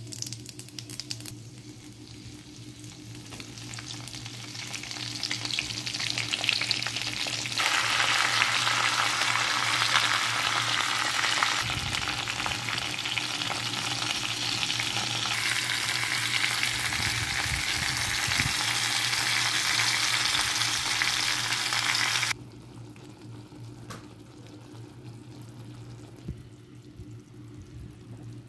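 Whole spices and raw mango slices sizzling in hot oil in an iron wok. The frying hiss builds over the first few seconds, then stays loud and steady until it cuts off abruptly about three-quarters of the way in, leaving a quieter simmer. A steady low hum runs underneath.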